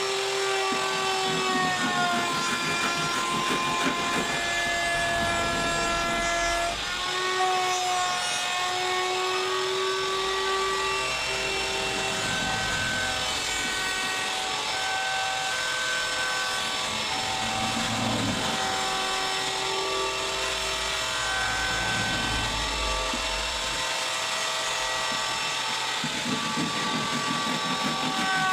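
Electric woodworking power tool running on wood with a steady motor whine. The pitch dips briefly now and then as the tool bites and recovers, over a rough rasp of cutting.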